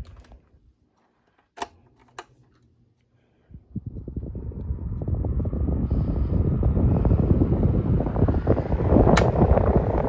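A few sharp clicks, then about three and a half seconds in a portable electric fan starts and builds up to a loud, steady rush of air blowing across the microphone. Another sharp click comes near the end.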